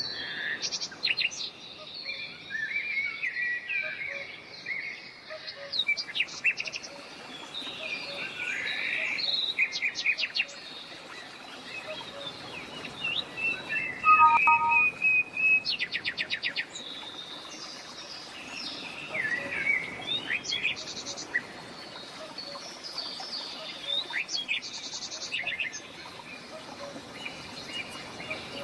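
Several birds chirping and singing, with quick trills of rapidly repeated notes and short whistled calls, over a steady background hiss.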